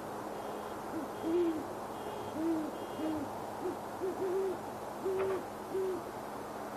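Great horned owls hooting: a run of about nine deep, short hoots spread over some five seconds, over a steady background hiss.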